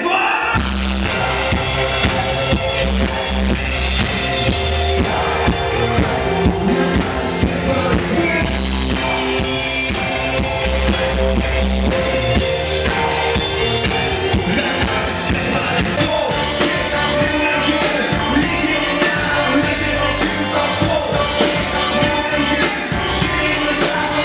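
Rock band music with a male singer over electric guitar, bass and drums, playing steadily and loudly.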